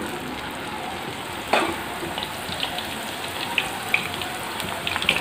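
A poori deep-frying in hot oil: a steady sizzle with scattered crackles that get busier near the end as the poori puffs up. One sharp knock about a second and a half in is the loudest sound.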